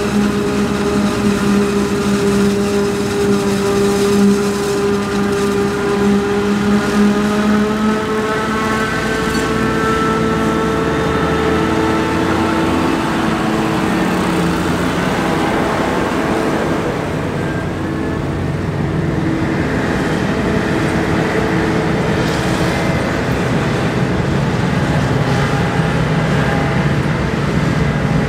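Diesel engines of a forage harvester and tractors at work, running steadily. One engine note shifts slowly in pitch and fades about two thirds of the way through, then a deeper engine grows louder near the end.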